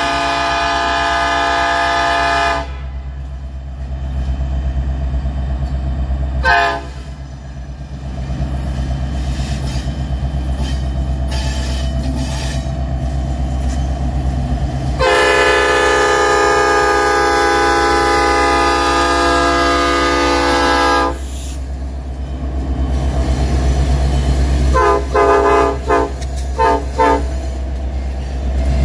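Locomotive air horn, a five-chime cast P5 on CN SD70M-2 8015, blows a blast of about three seconds, a short toot, a long blast of about six seconds, then a quick run of short toots near the end. Under it runs the steady low rumble of the diesel locomotives as the train comes up and passes close by.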